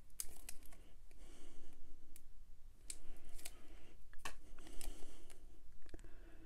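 Paper and thin plastic film crinkling and rustling in the hands as the red liner is peeled off double-sided tape on a die-cut paper tree, with many small sharp clicks and crackles.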